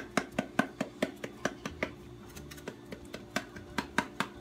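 Spice shaker shaken rapidly, seasoning being sprinkled out: a steady run of sharp rattling taps, about five a second.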